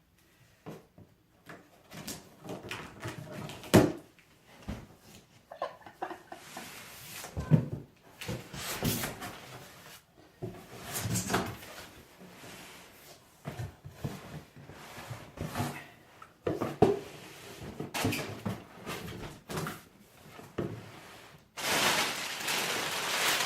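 Cardboard shipping box being cut and pulled open: irregular knocks, scrapes and tearing of the cardboard. In the last couple of seconds, packing paper crinkles steadily as it is pulled out.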